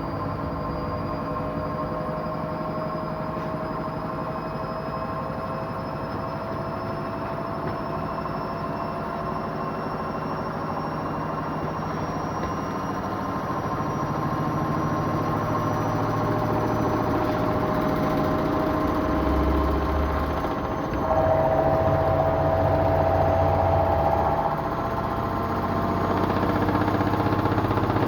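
Washing machine spinning: a motor whine whose tones rise slowly in pitch as the drum speeds up, over a low rumble that gets louder from about halfway and swells heavier about three quarters of the way in. The owner, whose machine is rated at 1200 rpm, thinks it sounds like a machine spinning at only 1000 rpm.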